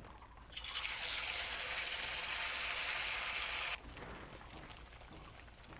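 A semolina luchi deep-frying in very hot oil in an aluminium kadai, sizzling loudly from about half a second in. The sizzle drops sharply after about three seconds to a fainter crackle.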